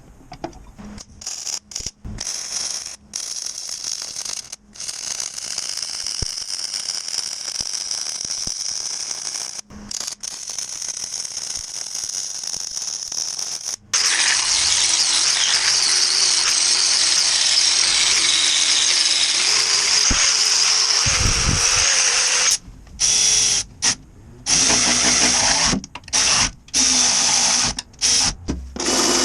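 Handheld power tool run in trigger bursts with a high-pitched whine, likely working metal. It runs moderately for about the first half with a few brief stops, then at full loudness and steady for about eight seconds, then in short on-off bursts near the end.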